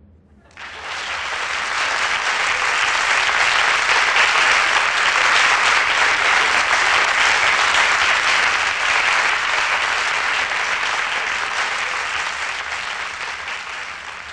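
Audience applauding, starting about half a second in and dying away slowly near the end.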